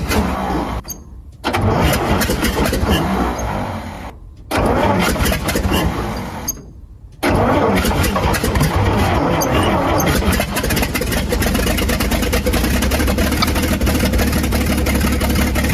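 Old carbureted gasoline truck engine, fed from a fuel bottle on the hood, cranking and firing in runs of two to three seconds that cut out three times, then catching about seven seconds in and running steadily: the long-dead engine finally starting.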